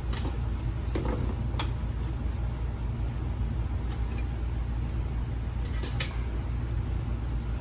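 Plastic side pieces of a car navigation unit's case being pried and popped out by hand, giving a few sharp clicks and snaps, the loudest about six seconds in, over a steady low hum.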